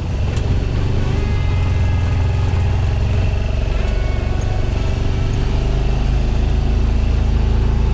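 Steady low rumble of a vehicle running, mixed with wind buffeting the microphone, stepping up in loudness just after the start.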